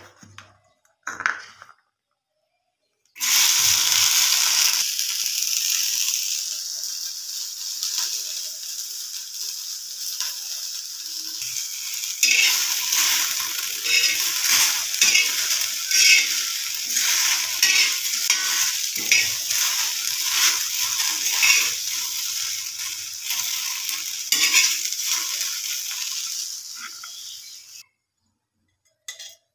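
Chopped okra sizzling as it fries on a hot flat iron tawa. The sizzle starts abruptly about three seconds in. From about twelve seconds in, a spatula stirs the pieces, adding quick clicks and scrapes over the steady sizzle, which cuts off near the end.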